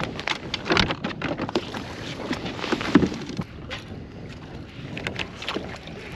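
Fishing tackle being handled on a bass boat's deck: scattered sharp clicks and knocks as an Alabama rig and rod are handled, the loudest about three seconds in. Wind runs on the microphone throughout.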